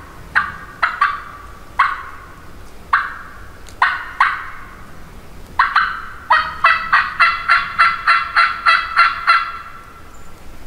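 Hen turkey calling, most likely a hunter working a turkey call. Sharp, scattered cutting notes come first, then a steady run of about a dozen yelps at some four a second, which stops near the end.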